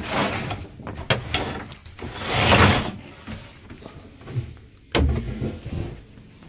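Rustling, scraping and bumping as someone moves about a cramped fibreglass V-berth, handling the phone among foam pool noodles and rope. A loud rustle swells about two and a half seconds in, with sharp knocks about one second in and a heavy thud about five seconds in.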